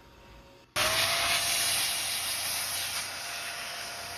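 XPOWER electric air duster switched on about three-quarters of a second in: a steady rush of air with a motor whine that climbs quickly to pitch and then holds, blowing dust off a graphics card.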